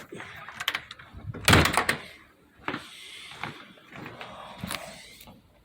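A door being handled and opened: a run of clicks and knocks, with a loud rattle about a second and a half in.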